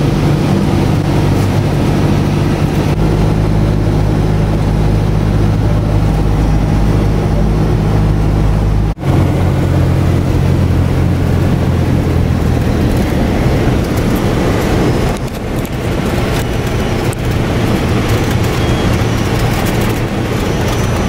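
Cessna 172S's four-cylinder Lycoming engine and propeller droning steadily as heard inside the cabin on final approach, with a brief gap about nine seconds in. In the second half the steady engine tone fades into a rougher, noisier rumble with the power pulled back for landing.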